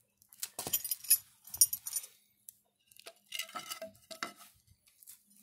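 Light clinking and tapping of small hard objects: a few short knocks, some with a brief ringing, in two clusters separated by a quiet gap.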